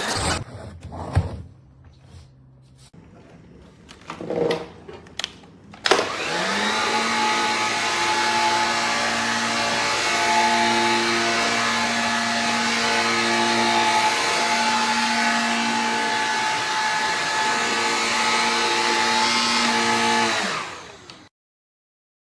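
A few clicks and handling knocks, then about six seconds in a Shark cordless stick vacuum is switched on: its motor spins up quickly and runs steadily for about fourteen seconds before winding down and cutting off near the end.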